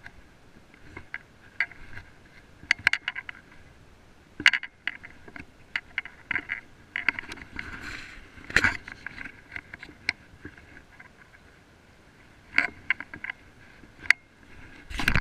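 Irregular footsteps, scuffs and knocks from climbing down a rocky, mossy riverbank, picked up close by a body-worn action camera, over the faint steady rush of a shallow river running over stones.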